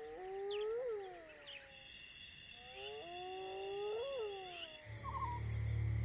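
A wild animal gives two long, clear calls about three seconds apart, each rising in pitch and then falling away, over a steady high chirring of night insects.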